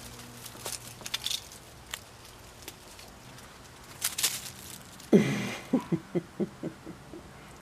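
Light rustling and crackling of dry leaves and grass as a Persian kitten moves through them, in a few short scattered bursts. About five seconds in, a person gives a soft chuckle: a run of five or six short pulses that fade out.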